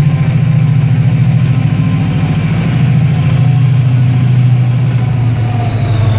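Class 68 diesel locomotive 68022's Caterpillar V16 engine running as the locomotive passes slowly, a loud, steady deep drone. A faint high whine above it drops in pitch near the end.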